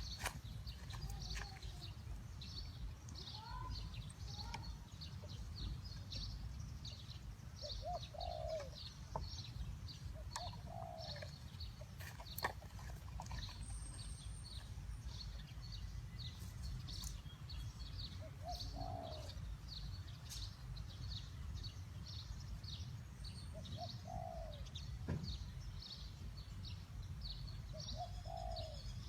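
Spotted doves cooing, short phrases repeated every few seconds, over a constant high rapid chirping and a low rumble of background noise.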